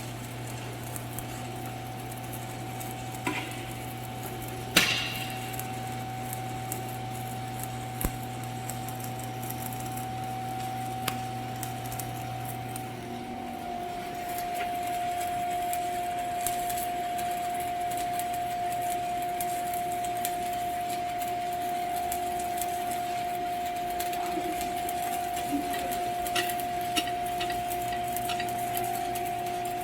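TIG welding arc buzzing steadily, its tone shifting slightly about 13 seconds in, with a few sharp metallic clinks.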